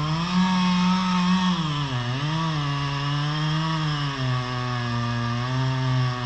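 Two-stroke chainsaw cutting into an ash tree. Its engine pitch dips sharply about two seconds in as the chain loads up in the wood, recovers, then runs on at a lower, steady pitch from about four seconds.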